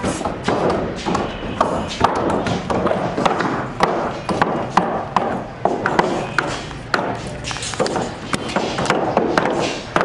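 Construction-site work noise: irregular sharp knocks and metallic clinks, roughly one or two a second, over a steady background din.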